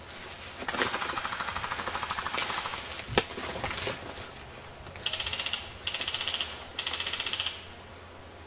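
Airsoft guns firing on full auto. A long rapid burst starts about a second in, a single sharp snap comes around three seconds, then three short, higher-pitched bursts follow in quick succession.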